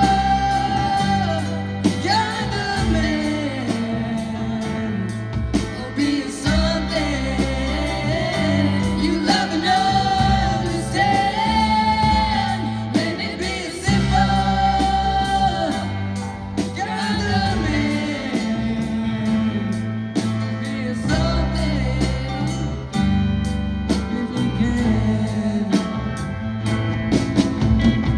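Band music: a singer carrying a melody over guitar and sustained bass notes that shift every few seconds.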